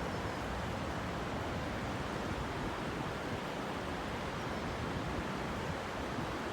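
Steady outdoor rushing noise, even throughout, with no calls or distinct events standing out.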